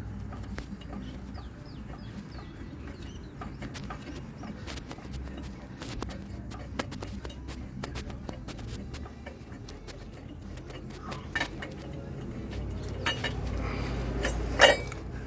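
Scattered light metallic clicks and taps from hand tools and a steel bracket being worked loose under a pickup truck, over a low steady rumble, with a chicken clucking. A single sharp metal clank comes near the end.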